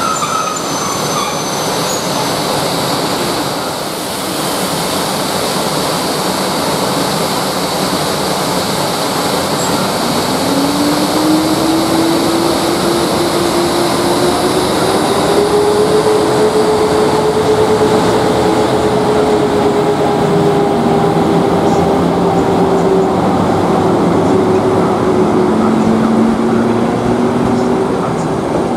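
PKP Intercity EP09 electric locomotive hauling a passenger train away from a standstill, with a steady mechanical rush. About ten seconds in, a whine rises in pitch and then holds as the train picks up speed.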